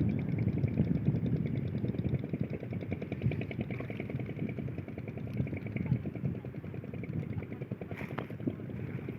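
A small engine running steadily with a fast, even beat, and a brief sharp sound about eight seconds in.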